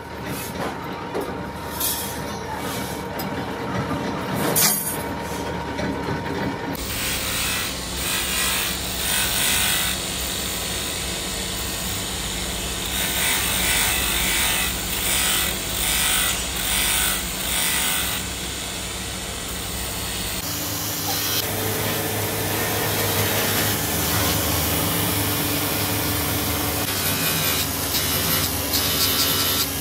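An electric abrasive grinding wheel grinding the edges of a stack of steel fork blanks: a steady harsh grinding that swells and eases about once a second as the stack is pressed against the wheel and drawn back. The first several seconds hold only lighter clicks and handling of the loose metal forks before the grinding starts.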